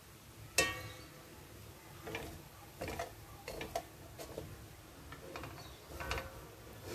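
A spatula knocking and scraping against a metal pan while turning rice: a run of irregular clicks and clinks, the sharpest about half a second in with a brief metallic ring.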